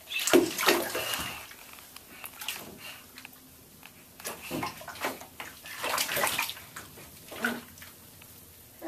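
A toddler splashing and sloshing bathwater in a tub with his hands: a big splash just at the start, then a string of smaller splashes.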